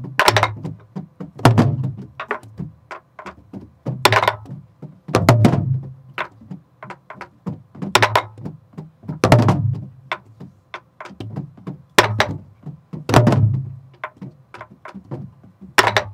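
Several sori-buk barrel drums of Korean pansori played together by a group with sticks, in a slow jajinmori rhythm: soft taps on most beats, with a loud pair of strikes coming round about every four seconds.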